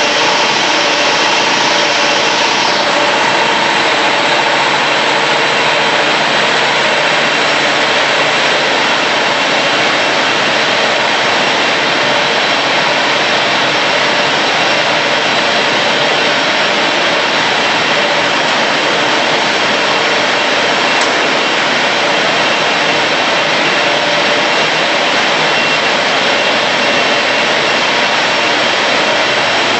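Automatic copy-paper roll-to-sheet cutting machine running: a loud, steady mechanical whir and hum with no distinct cutting strokes. The highest hiss drops a little about three seconds in.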